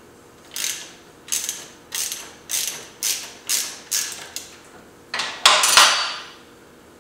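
Quarter-inch drive socket ratchet loosening a half-inch bolt, its pawl clicking on each back-stroke, about seven strokes at a steady pace, then a longer, louder run of clicking near the end.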